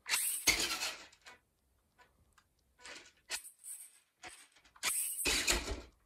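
Remote-control Grave Digger toy monster truck's electric drive motor and gears whirring in about four short bursts of roughly a second each as it is driven across the carpet.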